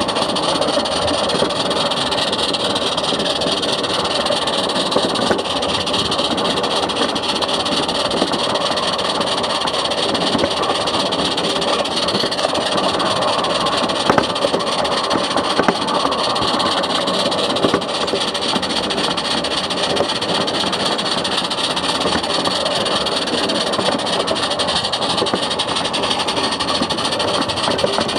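16 mm scale garden railway train running along the track, heard from on board: a steady, rapid mechanical clatter of the running gear and wheels on the rails.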